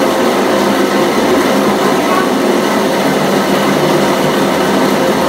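Steady loud rushing roar from the stove burner under a large steel cooking pot.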